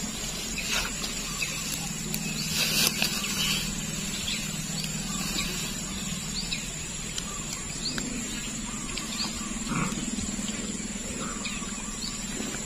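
Outdoor ambience by the water: short rising bird chirps come and go over a steady high insect buzz and a low steady hum. A brief louder rustling splash comes about three seconds in as the collapsible shrimp trap is handled at the water's edge.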